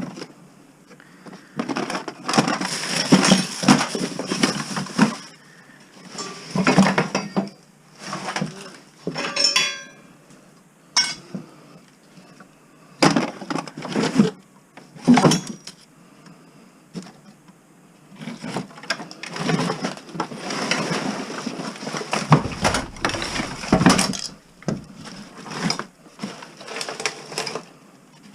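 Hands rummaging through household junk and scrap, with objects clinking and clattering as they are picked up and dropped, in irregular bursts. One item rings briefly about ten seconds in.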